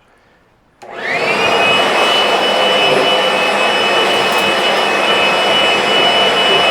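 Leaf blower switched on about a second in, its motor whine rising quickly and then holding steady under a loud rush of air, blowing lint and dust out of a dryer cabinet.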